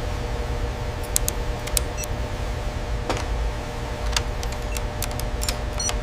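Steady low machinery hum with a few faint steady tones, broken by scattered sharp clicks and ticks.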